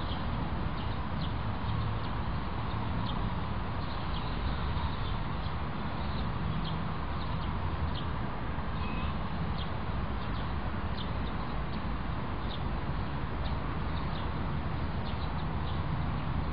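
Small bird chirping with short, high notes about once a second, over a steady low outdoor rumble.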